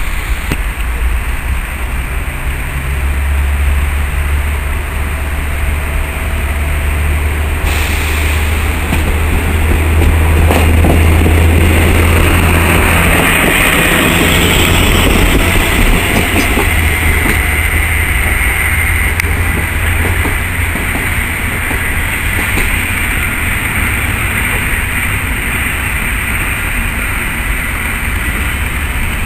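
PESA SA103 diesel railbus departing: its diesel engine runs with a deep low drone as it pulls away. About halfway through the cars pass close by with wheel-on-rail noise and a hiss, and the sound eases as the train moves off.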